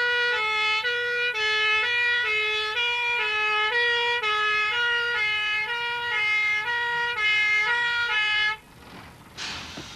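Fire engine's two-tone siren, switching back and forth between two notes in the classic British hi-lo pattern. It cuts off suddenly near the end, leaving a faint rushing noise.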